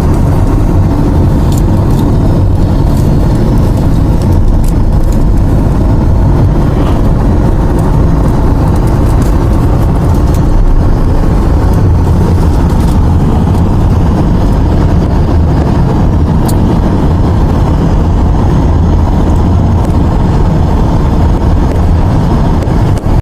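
Car driving along, heard from inside: a steady, loud rumble of engine and tyre noise.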